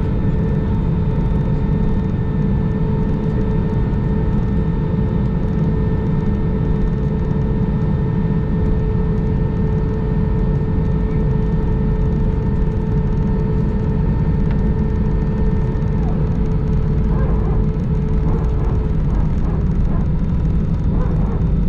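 Steady rumble of an Airbus A319 cabin as the jet taxis with its engines at low power, with a few steady whining tones over it. The highest whine stops about three quarters of the way through.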